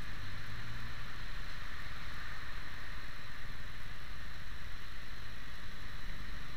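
Motorcycle engine running steadily in slow traffic, under constant wind and road noise rumbling on the microphone.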